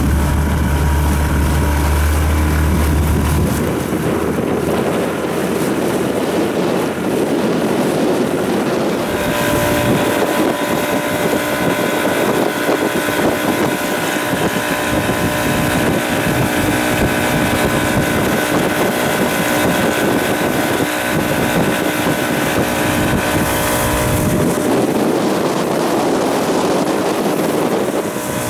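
Small outboard motor driving an open boat at steady speed, with wind buffeting the microphone now and then.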